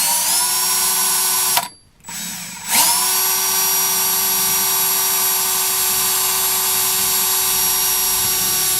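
Electric drill with a titanium-coated high-speed steel bit spinning up and running with a steady whine for a second and a half, stopping, then spinning up again about three seconds in and running steadily through the rest as it drills through a test piece.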